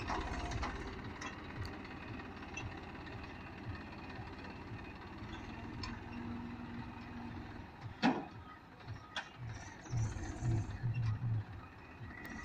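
Massey Ferguson 245 tractor's three-cylinder diesel engine running as it pulls a trailer loaded with sacks away down a dirt track. A single sharp knock about eight seconds in.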